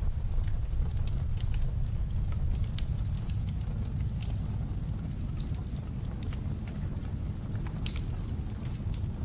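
Fireplace crackling, with irregular sharp pops and snaps, the sharpest about eight seconds in, over a steady low rumble of blizzard wind.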